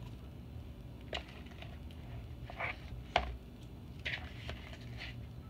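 Hands kneading and scraping chunky, slushy borax slime in a plastic bowl: soft squelches and a handful of short knocks and clicks, the loudest a little after three seconds in.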